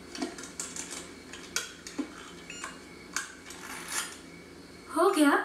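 Small metal parts and tools clicking and clinking against each other on a tabletop, a string of light, irregular taps. A short spoken word near the end is louder than the taps.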